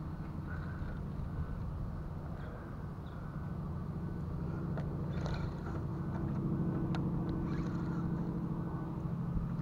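Electric trolling motor humming steadily, getting a little louder about halfway through, with a few light clicks over it.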